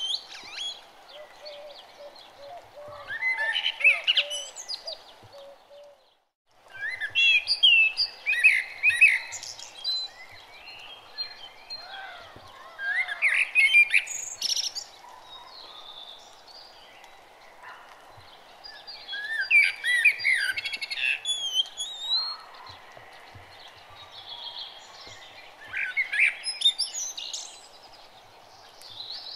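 Birds chirping and singing in short bouts every few seconds over a steady faint background hiss, with a brief dropout about six seconds in.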